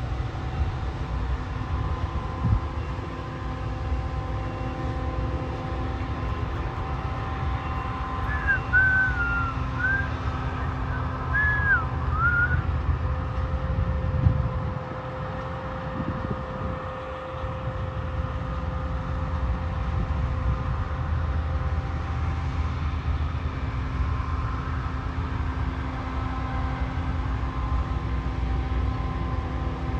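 Combine harvester running steadily: a continuous machine hum with several steady tones. About a third of the way in come a few short whistled notes.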